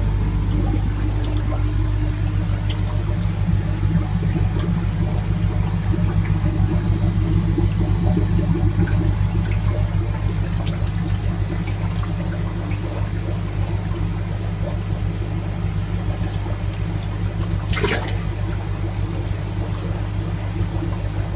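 Water sloshing and trickling in a tub of live fish as a hand grabs and lifts a fish, over a steady low machine hum, with a sharper splash about eighteen seconds in.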